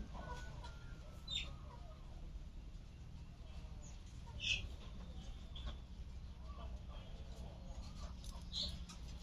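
A bird chirping: three short high notes, each sliding down in pitch, a few seconds apart, over a low steady rumble.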